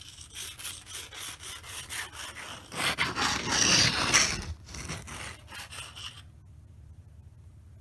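Sandpaper rubbed by hand back and forth over chalk-painted wood, distressing the edges for a worn vintage look. The quick strokes grow loudest around the middle and stop about six seconds in.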